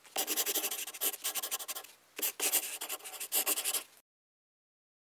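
Marker pen scratching over a drawing surface in quick strokes, in two runs of about two seconds each with a brief break between them, stopping about four seconds in.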